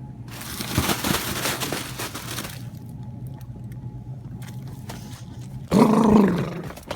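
Rustling and crinkling of plastic-wrapped toilet-paper packs for about two seconds as someone pushes out of a fort built from them. About six seconds in comes a loud, wordless vocal shout lasting under a second.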